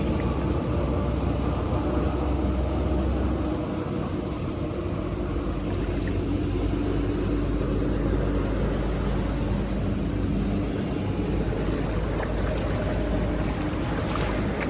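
Steady low rush of water pouring through an unblocked drain, with a few short splashes near the end.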